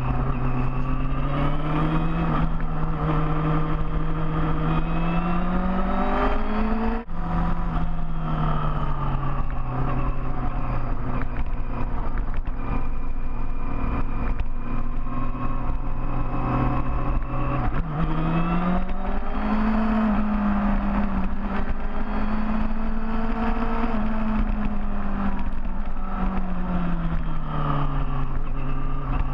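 Big motorcycle's engine running under way, its pitch climbing as it accelerates, then dropping abruptly with a brief dip about seven seconds in, as at a gear change. It climbs again a little past halfway and eases back down near the end.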